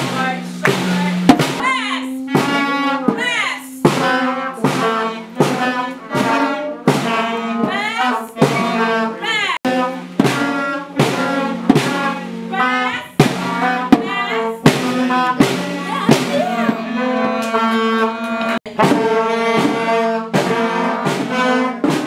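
School band rehearsing: snare drums struck in a steady beat, about one or two strokes a second, under held notes from wind and brass instruments that change pitch every second or two.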